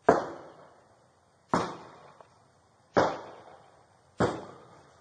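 Four gunshots about a second and a half apart, fired out the rear window of the house, each followed by a decaying echo.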